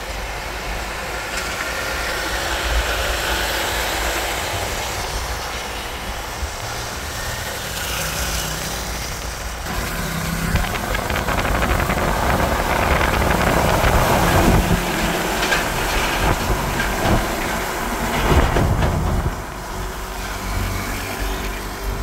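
Heavy diesel trucks passing close by on a wet road: engine rumble and tyre hiss. It grows louder through the middle as a container truck goes by, with a run of rattles and clanks, then eases off near the end.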